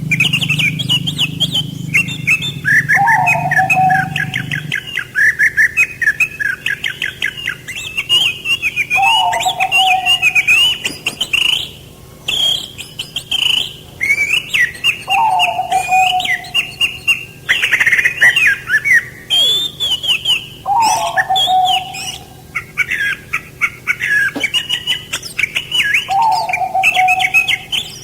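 Songbirds singing and chirping continuously in rapid warbling phrases, with a lower, falling call repeated about every six seconds. A low steady hum stops about five seconds in.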